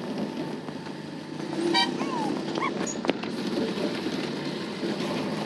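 Vehicle running over a rough, muddy dirt road, a steady engine and road rumble heard from inside the cabin. A short horn toot comes just under two seconds in, and a single sharp knock about three seconds in.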